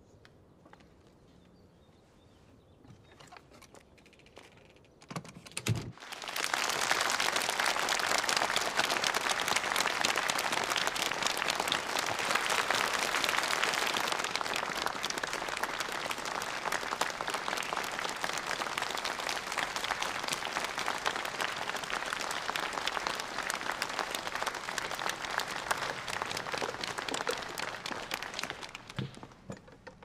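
Audience applauding in a concert hall, a dense clapping that starts abruptly about six seconds in, holds steady, and tapers away near the end.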